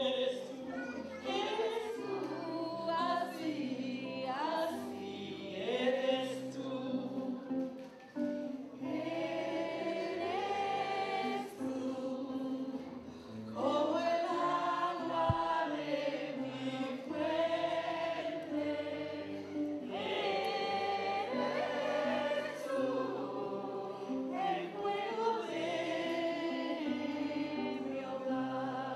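Music: voices singing together over instrumental backing, with a bass line moving between held notes.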